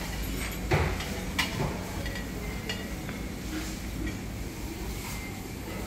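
Restaurant dining-room ambience: a steady low hum with scattered clinks and knocks of crockery and glassware, the loudest knock under a second in.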